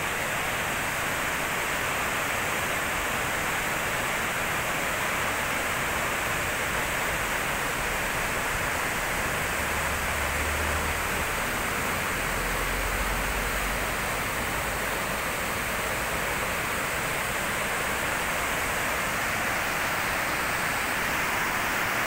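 Steady rush of a mountain stream in spate, white water tumbling down a steep rocky channel into a fast, muddy river.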